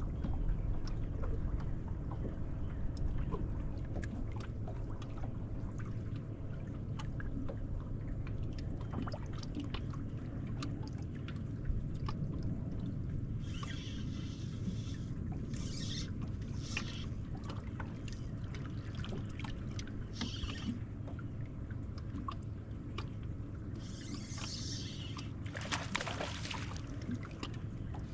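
A bass boat sitting on open lake water, water lapping and sloshing against the hull under a steady low rumble. In the second half there are several short hissing swishes, the longest near the end.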